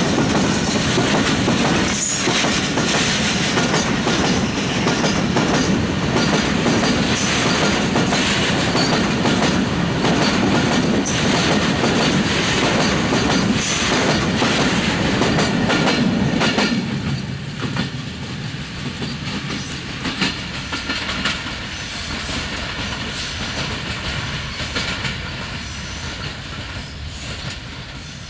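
A long freight train of bogie oil tank wagons rolling past close by, its wheels clattering steadily over the rail joints. A little over halfway through, the sound drops to a quieter, thinner rolling.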